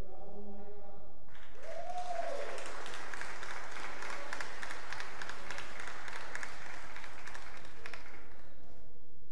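Audience applauding, starting about a second and a half in and fading out near the end, with one short shout near the start. A man's voice speaks briefly before the clapping begins.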